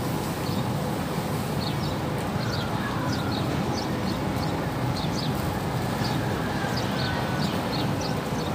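Outdoor ambience: a steady low rumble with repeated short high chirps of small birds scattered throughout.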